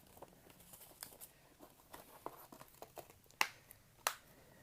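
Handling of plastic DVD and Blu-ray cases and discs: scattered light clicks and rustling, with two sharper clicks near the end.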